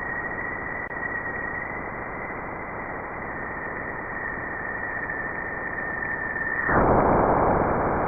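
Sonified space recording: static-like hiss with a steady high whistle that drifts slightly lower, then cuts out about six and a half seconds in as the hiss grows louder and brighter.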